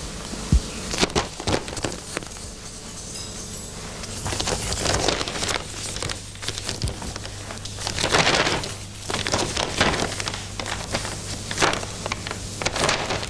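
Newspaper pages rustling and crinkling in irregular bursts as they are handled and turned, over a low steady hum.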